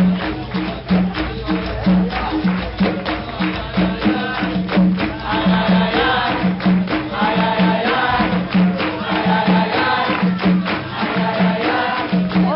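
Capoeira music: fast tambourine-like percussion over a repeating low pitched beat, with singing coming in about five seconds in.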